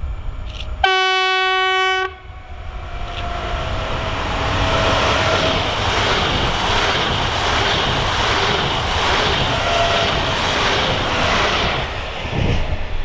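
PESA Dart (ED161) electric multiple unit sounding a single steady horn note for about a second, then passing close by: a loud rush of wheels on rail with a repeating clatter of the bogies, dropping away near the end.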